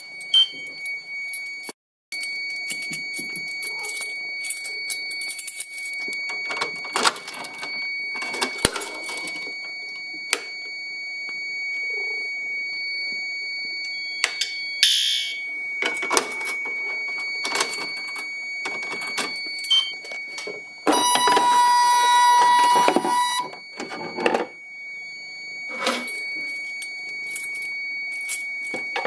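Fire alarm system in test: a steady high electronic alarm tone sounds almost throughout, broken briefly about two seconds in, over scattered knocks and handling clicks. About twenty seconds in, a louder, lower alarm tone sounds for about two and a half seconds.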